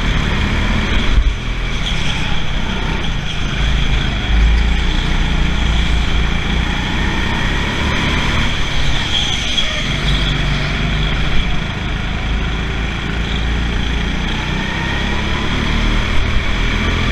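Go-kart engine running at racing speed, heard from on board the kart, its pitch rising and falling as it accelerates and slows through the corners.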